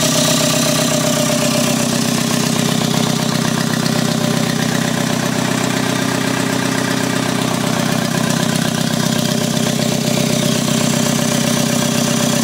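Volkswagen ALH 1.9 L TDI four-cylinder turbodiesel idling steadily with no exhaust pipe fitted to the turbo, on its first test run after a rebuild onto a new short block.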